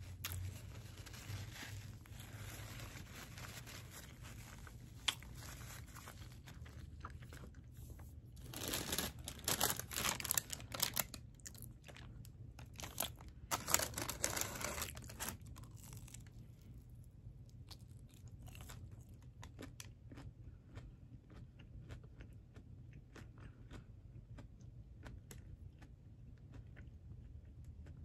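Close-up chewing, then a paper takeout bag rustling and crinkling in two loud spells, about nine and thirteen seconds in, as food is pulled from it; after that only soft scattered handling clicks.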